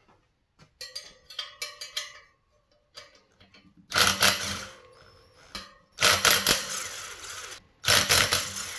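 Cordless impact driver hammering loose the bolts of a dirt bike's front brake rotor, in three bursts of about a second each. Before them come a few light metallic clicks of the socket being set on a bolt.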